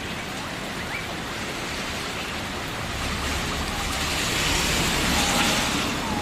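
Steady rain, an even dense hiss that swells louder about four seconds in and eases back near the end.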